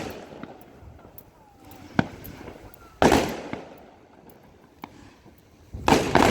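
Fireworks going off: a sharp bang about two seconds in, a louder bang about a second later that trails off over about a second, and another cluster of bangs near the end.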